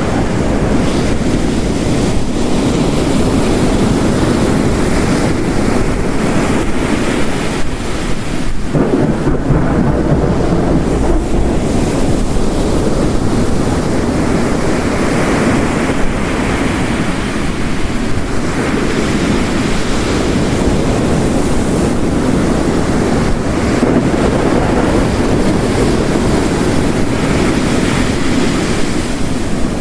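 Layered storm ambience: heavy rain, ocean waves crashing and washing along a coast, and a low rumble of distant thunder. It is a dense, steady wash of noise that swells and eases slowly, with no sharp strikes.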